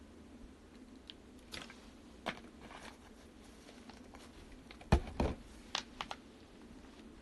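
Faint mouth and swallowing sounds while drinking from a plastic water bottle, then a loud thump about five seconds in, followed by a few sharp clicks as the bottle is handled.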